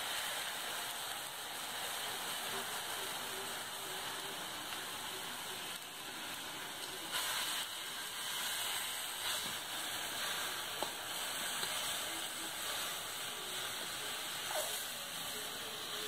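Chopped leaves and a little water sizzling and steaming in a kadai over a wood fire: a steady hiss, with an occasional light tap of the stirring spatula.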